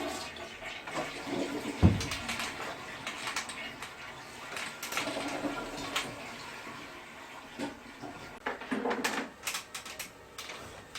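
Scattered clicks and knocks of handling, with one sharper thump about two seconds in.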